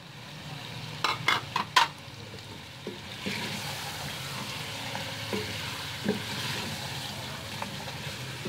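Chicken korma frying in a steel pot while a wooden spatula stirs it through, browning the chicken and spices; the sizzle grows stronger about three seconds in. A few sharp knocks come just after the first second.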